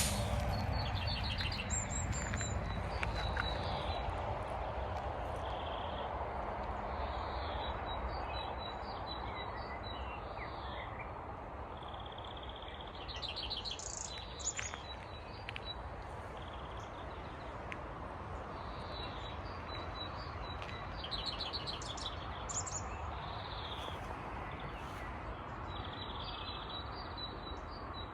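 Forest birds singing and calling: many short chirps and quick trills, some repeated on one high note, scattered throughout. Underneath is a steady background rush with a low rumble that is loudest at the start and fades away over the first several seconds.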